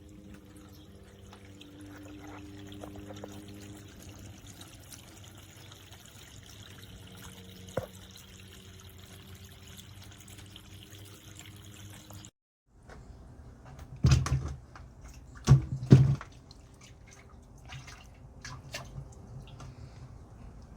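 Cascading water fountain trickling and dripping steadily, with a faint low hum beneath it. Partway through, the sound cuts out for a moment and then gives way to a few loud knocks and scattered clicks.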